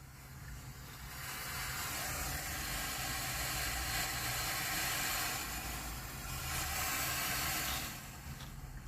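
A steady hiss that swells about a second in and drops back near the end, over a constant low hum.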